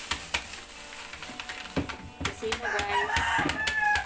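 A rooster crowing once, a held call lasting about two seconds in the second half, over scattered clicks and rustling from groceries being handled.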